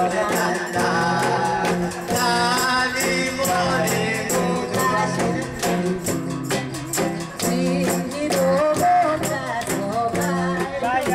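A man singing into a microphone, accompanied live by an acoustic guitar and a steady hand-percussion beat, with people clapping along.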